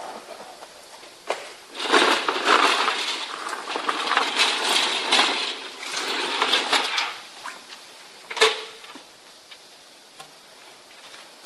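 Air-powered wet/dry vacuum cleaner sucking up small hard debris: a rushing noise full of rapid clinking and rattling that starts about two seconds in and stops about five seconds later. A single sharp knock follows.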